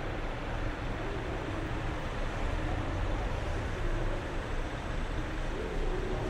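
Steady ambient noise: a low rumble with a hiss over it and no distinct events.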